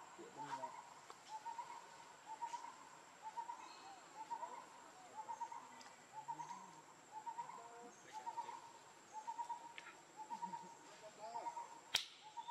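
An animal call repeated at an even pace, a short rising-and-falling note about every three-quarters of a second, with one sharp click near the end.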